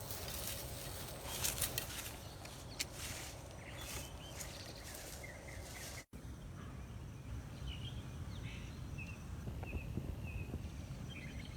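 Outdoor countryside ambience. Footsteps and rustling through undergrowth are heard in the first half, with short bird chirps scattered through, mostly in the second half, over a low rumble of wind. The sound drops out for an instant about six seconds in.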